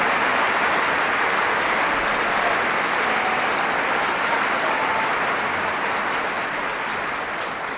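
Large theatre audience applauding, a dense steady clapping that gradually fades, dropping away near the end.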